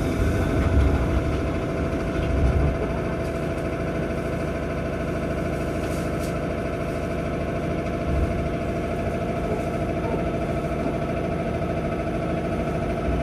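Steady hum inside a JR Nara Line electric train standing at a station platform, with a couple of low thumps in the first few seconds.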